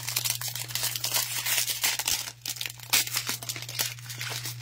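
Crinkling and rustling of trading-card pack wrappers and cards being handled, a dense run of short crackles.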